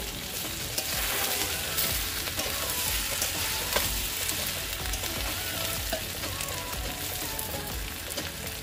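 Green jackfruit and potato pieces sizzling steadily as they fry in oil and spice paste in a metal pan. A spatula stirs and scrapes against the pan with a few sharp clicks.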